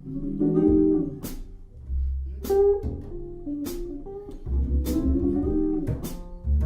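Music: a jazz-blues guitar intro, plucked chords and single notes, over a low bass line, with a sharp drum hit about every 1.2 seconds.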